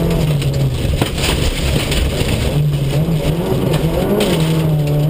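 Ford Ka rally car's engine heard from inside the cabin on a gravel stage: the engine note falls away about half a second in, with a single knock about a second in, then comes back, rises near the end and holds steady, over a constant hiss of gravel and road noise.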